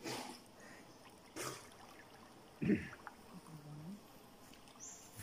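Water splashing as a person swims, in about three separate splashes roughly a second and a half apart.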